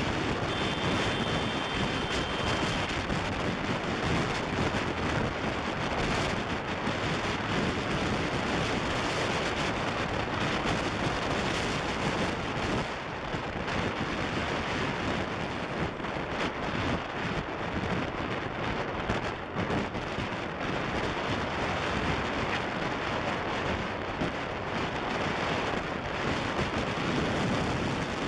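Wind buffeting the microphone of a camera on a moving motorbike, over the road and engine noise of the ride.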